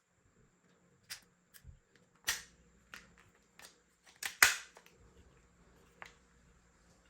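A toy gun being handled and fired: a string of sharp mechanical clicks and snaps, with two louder snaps about two and four and a half seconds in, the second the loudest.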